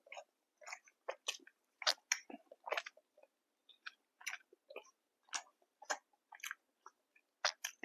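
A person chewing food close to the microphone: a run of short, wet clicks and smacks of the mouth, about one or two a second.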